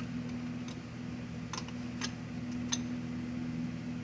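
A few sharp, unevenly spaced metal clicks from tools and bolts being handled while hub bearing bolts are fitted, over a steady low hum.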